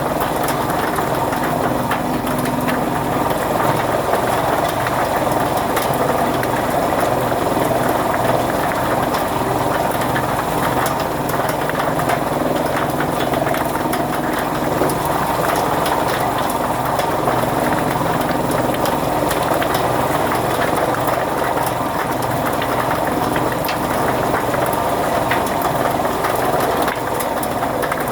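Chaff cutter (fodder-cutting machine) running steadily, a continuous mechanical hum with a rapid clicking clatter from its moving parts.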